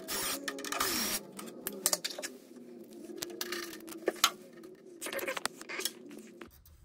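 Rustling, scraping and sharp plastic-and-metal clicks as the leads and wiring of a gas boiler's new electrodes are handled and routed inside the open casing. A dense burst of rustling comes in the first second, followed by scattered clicks, the sharpest about four seconds in, over a faint wavering drone.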